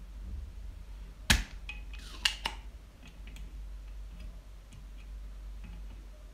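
Spring-loaded solder sucker (desoldering pump) firing with one sharp snap about a second in, followed by a quick cluster of smaller clicks and a rattle, as molten solder is sucked off a resistor joint on a circuit board. Faint taps of the tools continue afterwards.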